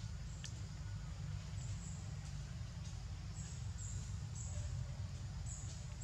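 Baby macaque giving faint short squeaks, over a steady low rumble of wind on the microphone.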